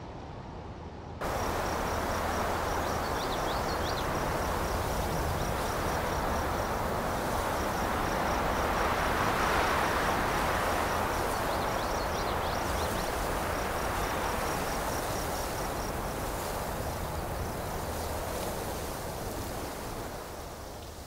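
Outdoor ambience: a steady rushing hiss with a rapid, high-pitched insect trill running over it. It cuts in suddenly about a second in and fades toward the end.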